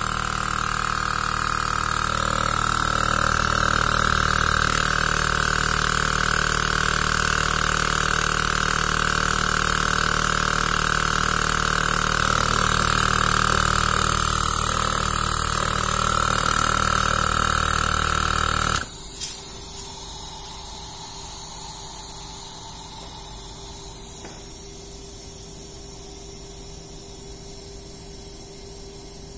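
Portable 12-volt tyre compressor running steadily while it pumps air into a coolant expansion tank to test the tank's pressure cap. About two-thirds of the way through it cuts off suddenly, followed by a short click and then a quieter steady hiss.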